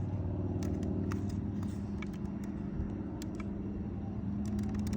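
A few faint clicks and taps of the plastic dispenser trim and its tabs being handled, over a steady low hum.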